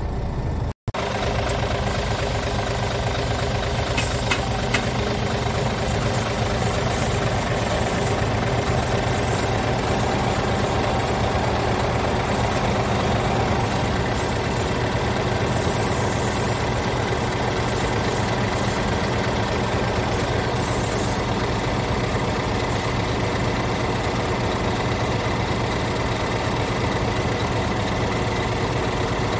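Scania R410 tractor unit's 13-litre inline-six diesel idling steadily.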